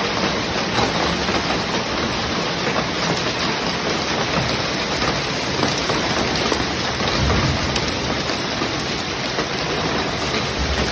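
Hailstorm pelting down: a steady, dense clatter of countless small hits with heavy rain, and a brief low rumble about seven seconds in.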